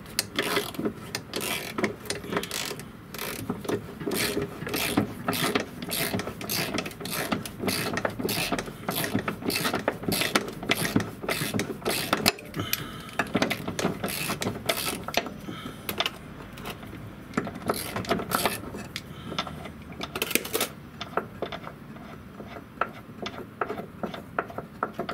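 Hand socket ratchet clicking in quick runs as the Torx bolts of a rear axle beam bracket are unscrewed.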